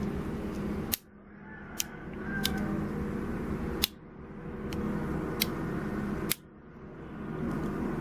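About six sharp metallic clicks, a second or so apart, over a low steady hum: the folding tools of a multi-function pocket knife being handled and snapped shut.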